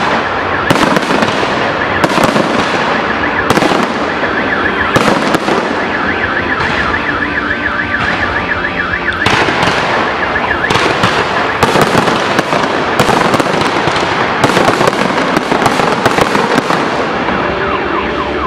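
Fireworks display: a rapid barrage of bursting shells with many sharp bangs and dense crackling. A high warbling tone runs through much of it.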